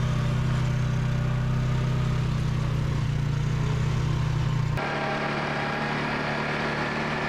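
A motor vehicle engine running steadily, its sound changing abruptly to a higher, noisier run about five seconds in.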